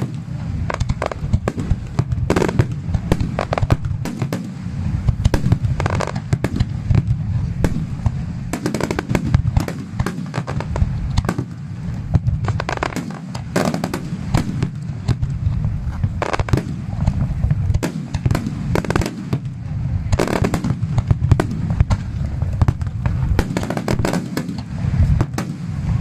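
Starmine fireworks barrage: a rapid, unbroken run of shell bursts, with many sharp reports over a continuous deep rumble.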